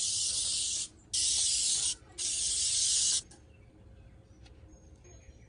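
Aerosol can of spray adhesive spraying in three bursts of about a second each, a steady high hiss, the first already under way at the start.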